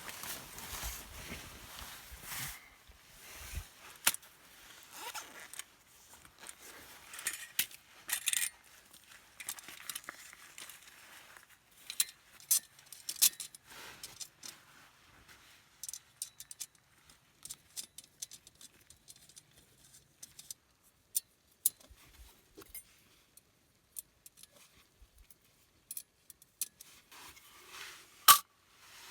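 Irregular small clicks, rustles and light scraping, like gear being handled close by, with one sharp click near the end.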